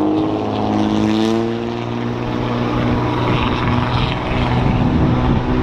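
A loud engine passing close by over steady highway traffic noise. Its pitch climbs for about the first second and a half, then levels off.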